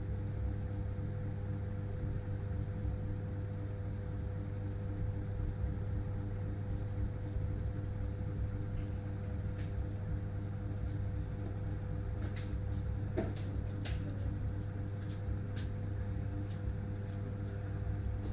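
Steady low mechanical hum, with a few short faint clicks in the second half.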